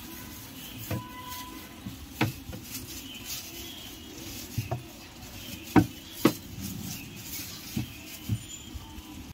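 Rolling pin working dough on a board, with about seven sharp, irregular knocks.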